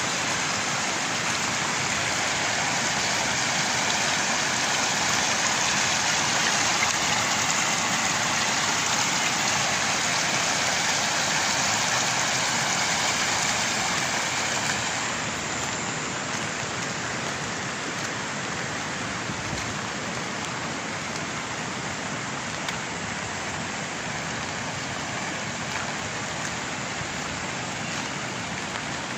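Muddy floodwater running across flooded paddy fields in a steady rush. It drops a little in loudness about halfway through.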